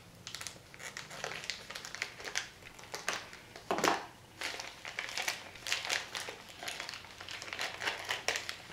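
Plastic sweets wrapper being torn open and crinkled by hand: a stream of irregular crackles and rustles, with a louder tear or crunch about four seconds in.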